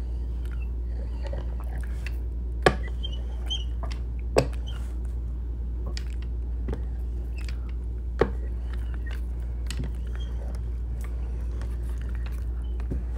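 A rubber brayer is rolled over a photographic print glued down with matte medium, pressing out air pockets. Soft handling and rolling noise is broken by a few sharp clicks, the loudest about two and a half and four and a half seconds in, over a steady low hum.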